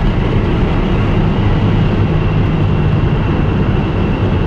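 Ford Mustang GT's V8 pulling steadily under hard acceleration at over 100 mph, a loud, steady, low drone heard from inside the cabin.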